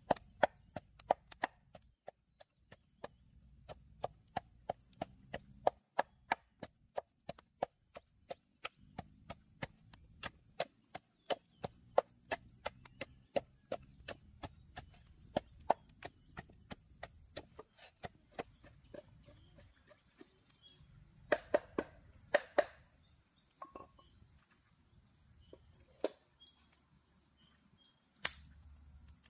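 A pestle pounding chili paste in a mortar: quick regular knocks, about three a second, that thin out later into a few louder, scattered knocks.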